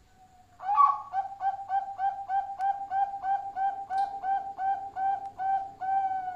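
Zebra dove (perkutut) cooing: starting about half a second in, a rapid run of short, evenly spaced coos, about three a second, ending on one longer drawn-out coo.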